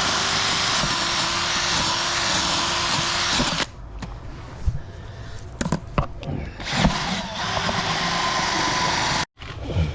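Power drill running against copper pipe to clean it: a steady motor whine under loud scrubbing noise that stops after about three and a half seconds. A few knocks follow, then the drill runs again for a couple of seconds and cuts off suddenly.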